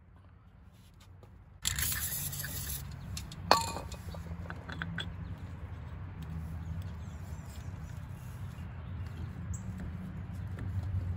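Metal ATV engine parts being handled and fitted by hand, with one sharp clink about three and a half seconds in, over a steady low hum that starts suddenly after a second and a half.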